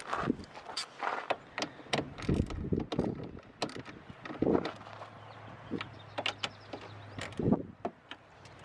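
Irregular clicks, knocks and clunks of car parts being handled and fitted during a reverse-light install, with a low steady hum for a few seconds in the middle.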